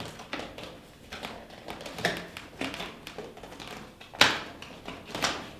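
Corrugated plastic (corflute) panels being folded and pushed through a slot by hand: scattered clicks and scrapes, the loudest about four seconds in.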